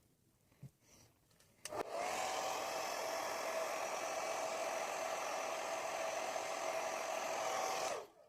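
Hair dryer switched on with a click about two seconds in, running steadily with an even whine over its rushing air, then switched off near the end.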